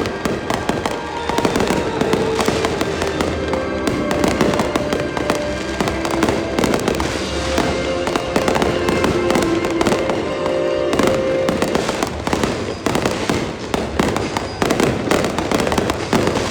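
Fireworks display going off, bangs and crackles in quick succession without a break, with music playing along underneath.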